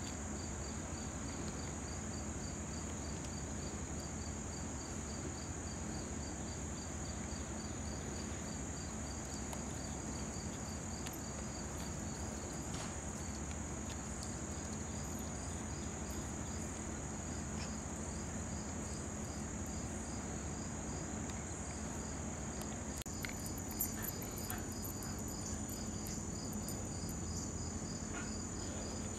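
Insects chirping outdoors in a steady, regular pulse of about three chirps a second, over a constant high-pitched drone. A few short faint clicks come about three-quarters of the way through.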